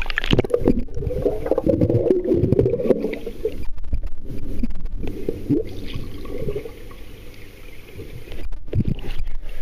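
Pool water sloshing and gurgling around a phone's microphone as it is dipped under the surface, muffled and low.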